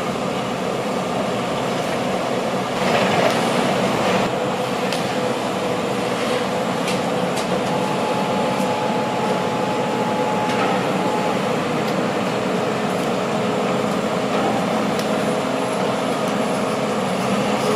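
Hitachi Sumitomo crawler earth drill rig running as its kelly bar hoists the soil-filled drilling bucket up out of the bore. It makes a steady machinery drone with a held whine, a little louder about three seconds in, and a brief higher whine partway through.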